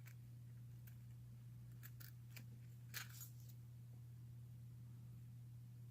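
A few faint metallic clicks and scrapes of lock-picking tools being handled and set to a small brass padlock, the most distinct about three seconds in, over a low steady electrical hum.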